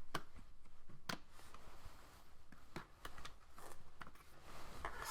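Scattered small clicks and light scrapes of laptop RAM modules being unlatched and pulled from their slots, about ten irregular ticks.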